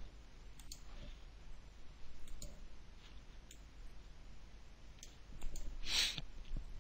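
Computer mouse clicking: a few faint, sharp, spaced-out clicks over low room hiss, with a short, louder hiss about six seconds in.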